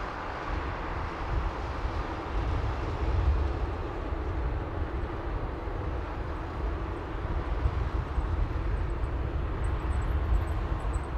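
Boeing 787-8 airliner's GEnx turbofans running at taxi power as it rolls slowly onto the runway: a steady jet-engine hiss over a low, uneven rumble.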